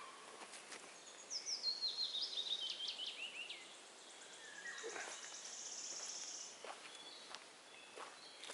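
A songbird singing: a run of quick chirping notes falling steadily in pitch, then a fast high trill a couple of seconds later, with a few faint snaps.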